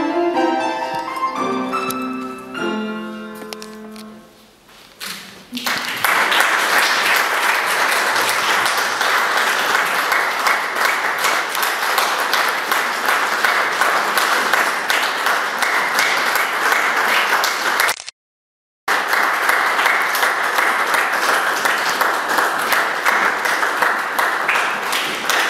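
A piece of classical music ends and fades out, then an audience applauds steadily. The applause cuts out completely for about a second in the middle, then carries on.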